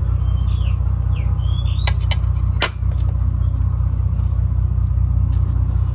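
Steady low mechanical rumble, with a few short bird chirps in the first second or so and several sharp clinks around two to three seconds in.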